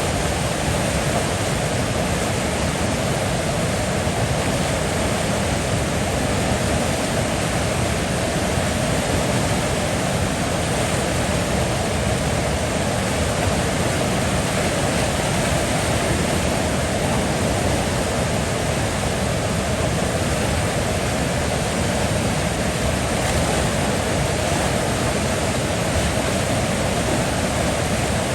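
River water flowing, a steady, unbroken rush of water with no distinct splashes or changes.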